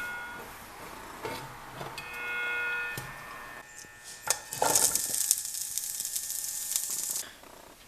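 Food sizzling in a frying pan, a loud hiss that starts about halfway through and cuts off near the end, after a few light clicks and a short steady high tone.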